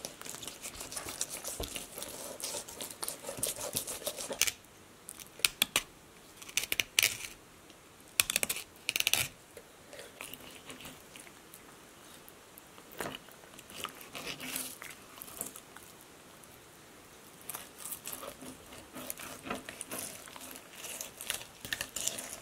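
A knife cutting and scraping through a northern pike on a plastic cutting board while filleting: irregular short slicing, scraping and clicking strokes, with quieter stretches in between.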